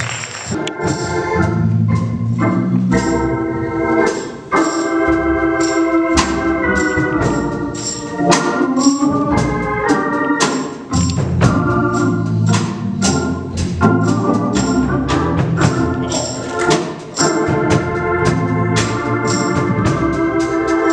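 Organ playing sustained, changing chords over a steady percussion beat, with no singing.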